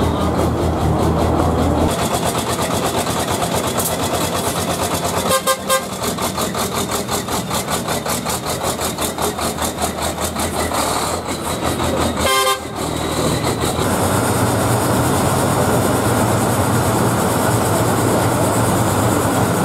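Heavy rally truck diesel engine running close by, with a fast, even beat for much of the time and a steady low hum at other times. Two short horn toots come about five and twelve seconds in.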